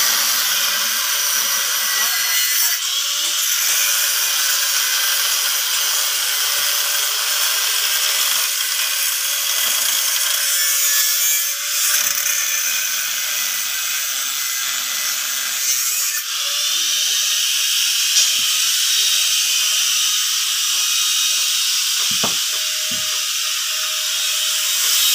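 A power tool running continuously, a steady high hissing whine with a faint hum beneath it.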